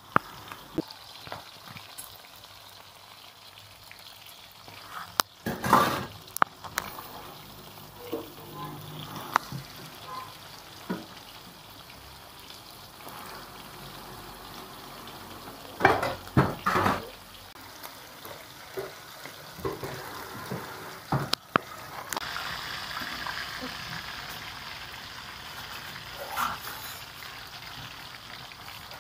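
Food frying in hot oil, sizzling steadily, with a handful of sharp knocks scattered through it and the sizzle growing a little louder near the end.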